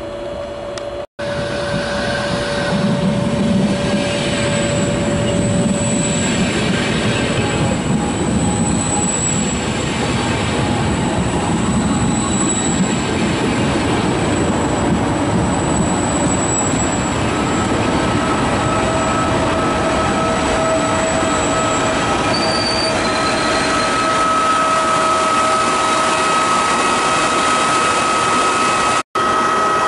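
Double-deck regional train of coaches hauled by an electric locomotive rolling past close by, a steady rumble of wheels on rail that builds over the first few seconds, with thin high whines from the wheels held over it. The sound drops out briefly about a second in and again near the end.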